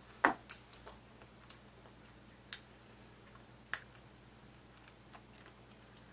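Hard candy clicking against teeth as it is sucked in the mouth: a few short, separate clicks roughly a second apart, the first and loudest just after the start.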